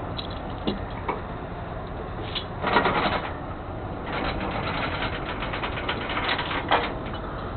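Metal tow-chain links clinking and rattling in short bursts: a louder clatter about three seconds in, then a quick run of clinks from about four seconds to near the end, over a steady low rumble.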